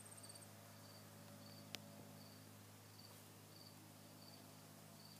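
Near silence with a faint cricket chirping steadily, a short chirp about two to three times a second. A single sharp click a little under two seconds in.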